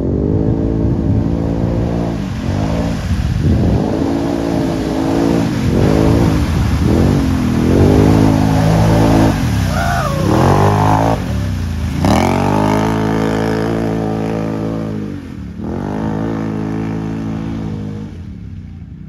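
Can-Am Maverick Sport X mr 1000R side-by-side's V-twin engine revving hard again and again, its pitch climbing and dropping with each throttle pull. About twelve seconds in there is a sudden burst of noise.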